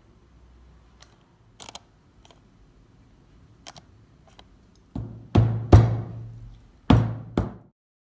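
Faint clicks of a silicone spatula against the baking tin, then a round tin of brownie batter tapped down hard on the table five times in quick, uneven succession, each a loud ringing thud, to settle the batter.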